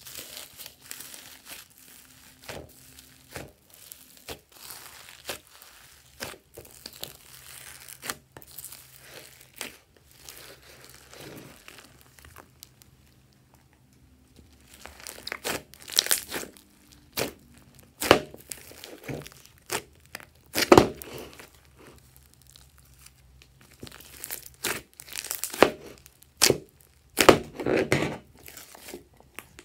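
Hands squeezing and mixing glossy slime with clay and foam beads in a glass bowl: a steady run of small crackles and squelching pops. From about halfway the pops get louder and sharper, with several loud slaps as the slime mass is turned out of the bowl.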